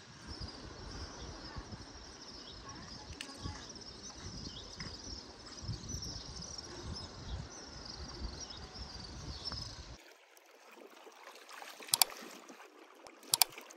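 Wind rumbling on the microphone under a steady high chirping. This stops abruptly about ten seconds in, followed by two sharp mouse-click sound effects from an on-screen subscribe-button animation.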